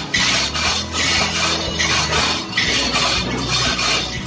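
Manual chain hoist being hauled by hand, the chain running through the hoist in repeated strokes, about five in four seconds, lifting a Caterpillar D353 engine part.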